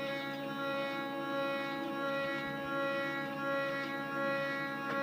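Stepper motors of a DIY CNC machine running at a slow 250 mm/min feed: a steady whine with several overtones, with a slight wavering in level.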